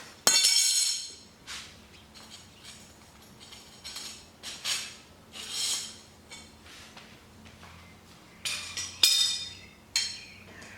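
Steel blacksmith tongs clinking against steel bar stock as they are handled and set down. Short metallic clinks with a brief ring, the loudest just after the start and several more scattered through.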